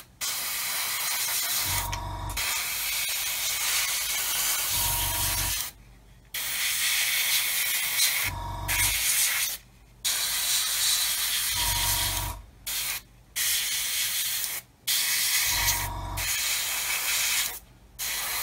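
Airbrush spraying paint: a steady hiss broken by about six short pauses as the trigger is let off. Under it, a low hum comes and goes about every three seconds.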